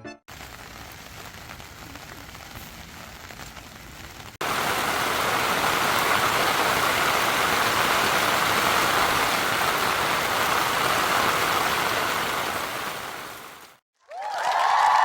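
Steady rain falling, fairly faint at first, then after a sudden cut about four seconds in much louder and denser, before fading out near the end.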